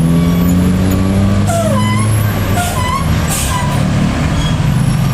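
Heavy diesel vehicle engine running loud under load in slow, jammed uphill traffic, its pitch rising slowly for about two seconds and then holding steady. Three short air-brake hisses come about a second apart in the middle.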